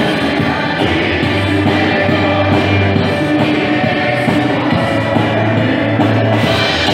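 Live band playing a sertanejo pop song: a male lead and female backing singers over violin, drum kit and a steady bass line.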